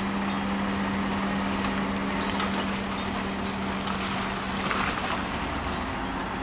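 A 4x4's engine running at a steady speed, a constant low hum under some broad outdoor noise.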